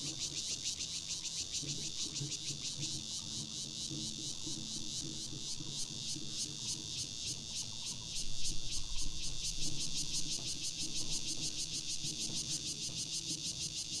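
Insect chorus chirring in a fast, steady pulse, high-pitched, with a brief low rumble about eight seconds in.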